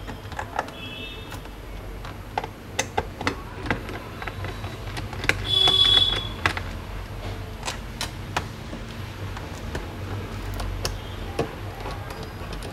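Small screwdriver backing screws out of a laptop's plastic base, with scattered light clicks and ticks of the driver and screws over a low steady background rumble. A little past halfway, a short high beeping tone lasting about a second is the loudest sound.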